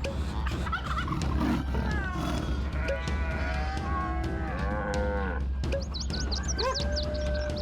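Cartoon animal sound effects over a steady low hum: several drawn-out calls that rise and fall, then quick high chirps near the end.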